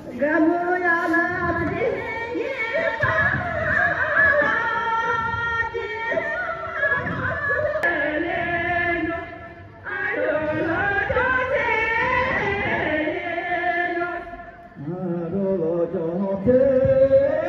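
Voices singing a song for a circle dance, in long sung phrases with two short breaks, about ten and fifteen seconds in.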